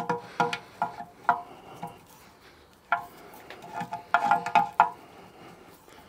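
A metal spanner clinking and scraping against the fittings at the base of a small riveted vertical steam boiler as a stuck fitting is worked at. The sound is a string of short metallic clinks, several with a brief ringing tone, bunched together about four seconds in.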